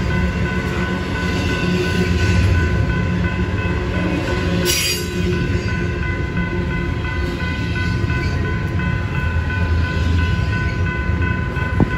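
Double-stack intermodal container well cars rolling past at close range: a steady low rumble of wheels on rail, with thin steady high ringing tones above it. A brief hiss comes a little before halfway, and a sharp knock just before the end.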